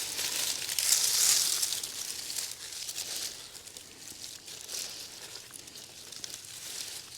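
Digging in clay soil around sweet potato roots: a rustling, crumbling scrape of soil and roots being pulled apart. It is loudest in the first second and a half, then comes on and off.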